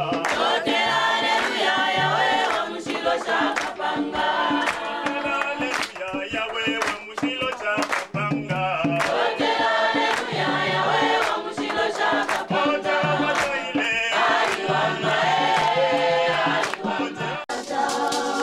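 A choir singing a gospel song over a band with a steady drum beat and a bass line.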